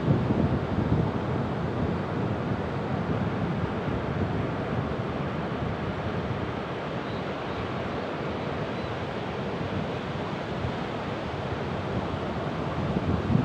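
Ocean surf: a steady rush of waves breaking and washing, swelling a little louder near the start and again near the end.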